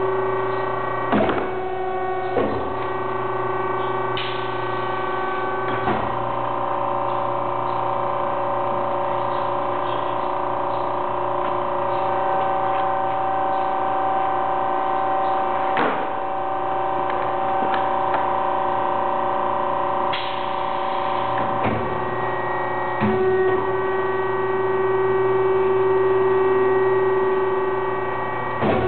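Heat transfer printing machine running with a steady hum of several tones that shift now and then, punctuated by several sharp clunks from its moving parts.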